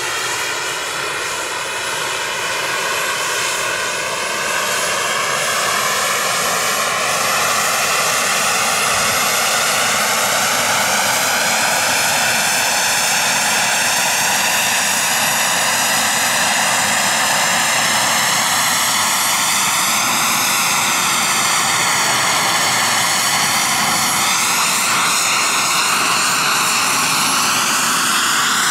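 ENJET E160 model jet turbine in a Pilot-RC J10-B running steadily and holding the jet in a nose-up hover: a loud turbine whine over a rushing exhaust. The whine rises slowly in pitch, with swells about two-thirds of the way in and again near the end.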